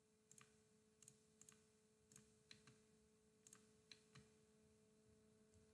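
Very faint computer mouse clicks, about ten of them with several in quick pairs, as walls are picked one by one, over a faint steady hum.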